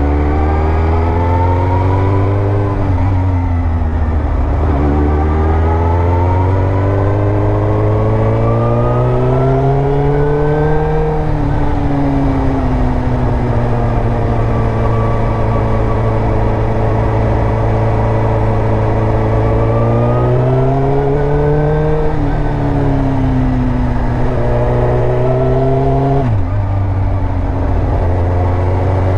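Suzuki GSX-R1000 K2's inline-four engine under way, its revs climbing and falling several times as the throttle is opened and eased off, with two sharp drops in pitch, one early and one near the end.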